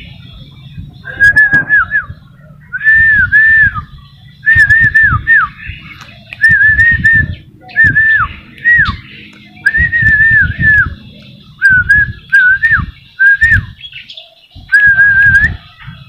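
A person whistling a short warbling phrase about a dozen times, each about a second long with a dip in pitch at its end, to call a released tame sooty-headed bulbul back.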